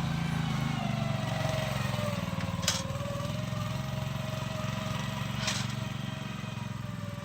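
Small engine of a ride-on spreader sprayer running steadily and slowly getting quieter, with two short clicks.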